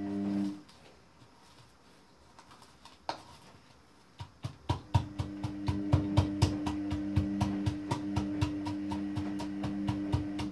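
Rapid repeated knocking, about three to four sharp knocks a second, from walnuts being crushed for çemen. It starts after a quiet stretch about four and a half seconds in, over a steady hum that cuts out about half a second in and returns when the knocking starts.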